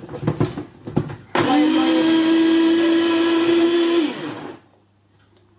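A few handling knocks, then an electric blender switched on about a second in, running steadily with a loud whine for close to three seconds on a mix of apples, chocolate digestives and water, then cut off and winding down.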